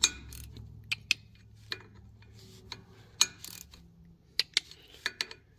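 Irregular sharp metallic clicks and clinks from a hand driver's bit working on the bolt heads of a Cummins accessory drive pulley as the bolts are checked for tightness.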